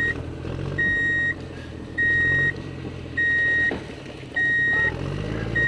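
Electronic reversing-alarm beeps from a toy construction truck: a steady high beep about half a second long, repeating about every 1.2 s, five times, over a low engine-like hum that rises and falls between beeps.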